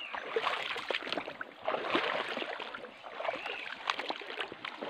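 Shallow seawater sloshing and splashing around wading feet and hands on a low-tide reef flat, with many small irregular clicks and knocks.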